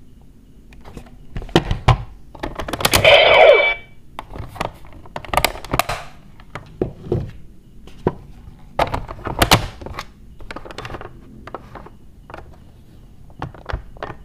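Plastic clicks, knocks and rattles as a DX Neo Decadriver toy belt and K-Touch 21 are handled and fitted together, with one short pitched electronic sound about three seconds in.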